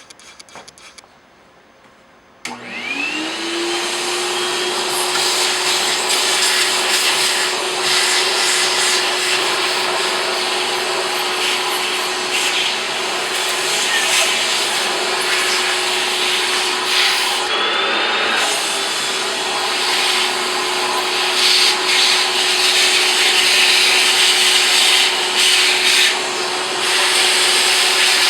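Vacuum cleaner switched on about two and a half seconds in, its motor whine rising to speed and then running steadily as it sucks leftover developer powder out of a copier's developer unit. A bit past the middle the pitch dips briefly and recovers.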